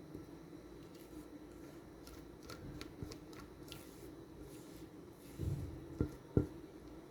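Kitchen handling sounds: scattered light clicks and scrapes, then a dull thump and two sharp knocks near the end, the last the loudest.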